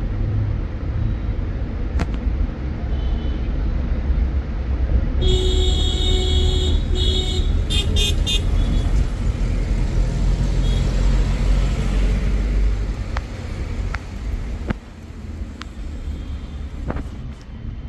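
Road traffic with a steady low rumble. About five seconds in a vehicle horn sounds for about two seconds, followed by a few short toots.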